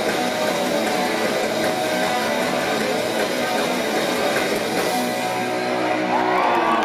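Live rock band playing the closing bars of a song, loud electric guitar to the fore, heard through a club PA from among the audience.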